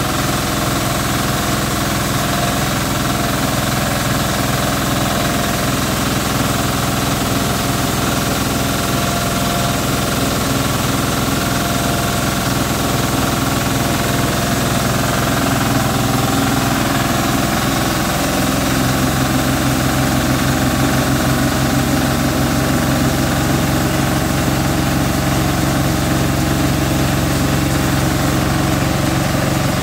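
Stationary engine running a belt-driven rice milling machine, a steady mechanical running note with the mill's vibration; the note shifts and grows slightly louder a little past halfway.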